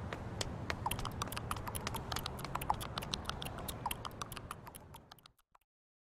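Rapid, irregular clicking and tapping over a low hum, with a few short squeaks, fading out to silence a little after five seconds in.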